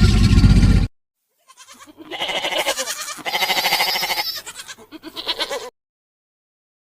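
A loud low rumble that cuts off under a second in, then an animal's quavering, rapidly pulsing call lasting about four seconds.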